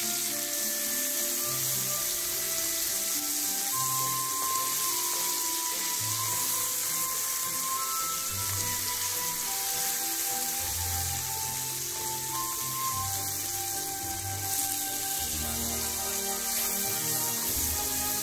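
Sliced garlic sizzling in olive oil in a stainless steel frying pan over a low flame as it is stirred, a steady hiss, with soft background music.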